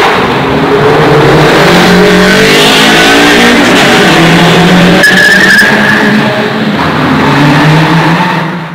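A car doing a burnout in a tunnel: the engine is held at high revs for several seconds while the spinning tyres squeal and skid, all echoing off the tunnel walls. The sound drops away sharply right at the end.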